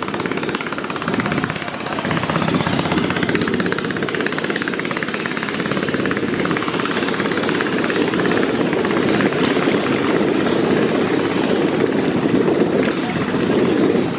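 The engines of the river passenger launch MV Manik 9 running hard at speed: a steady, fast engine throb under a continuous rushing noise.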